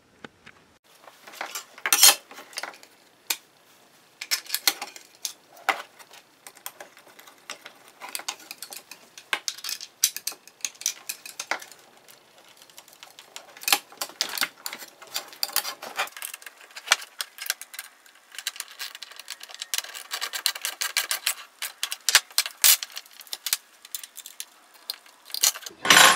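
Small metal hardware and a steel mounting plate clinking and rattling as they are handled and fitted to a plastic fuse box by hand, in irregular clusters of sharp clicks and clinks.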